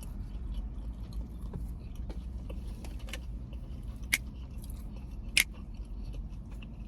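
A person chewing food close to the microphone, with small wet mouth clicks and two sharp clicks about four and five and a half seconds in.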